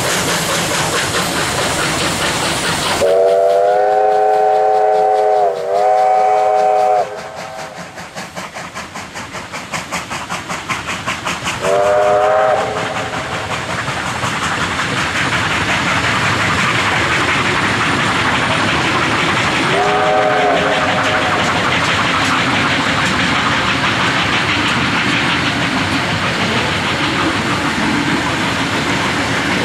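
Victorian Railways R class steam locomotives hauling a train of carriages past at close range, with steady running noise from steam, wheels and rail. The steam whistle sounds a long blast of about four seconds with a brief dip in the middle, then a short blast, and later a fainter short one. Between the first two blasts comes a quick rhythmic pulsing, and after that the carriage wheels clickety-clack over the rail joints.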